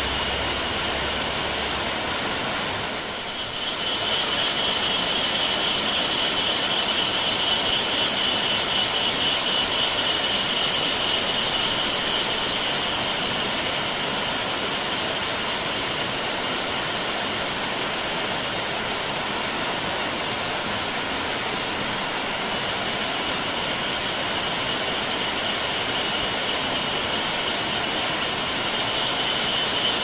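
Small waterfall cascading over rocks into a pool, a steady rush of water, overlaid with cicadas buzzing in a high, fast-pulsing drone. The cicada drone dips briefly about three seconds in and swells again near the end.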